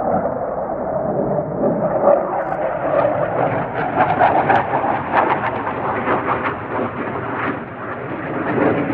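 Jet roar of a Panavia Tornado's twin RB199 turbofans during a low pass, swelling with a harsh crackle in the middle and easing off near the end.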